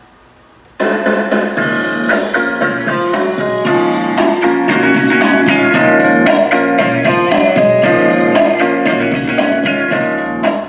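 Music played from a CD through a Mercedes-Benz W221 S-Class Harman Kardon amplifier on a test bench, the track starting about a second in after a short quiet gap. The repaired amplifier is putting out sound again.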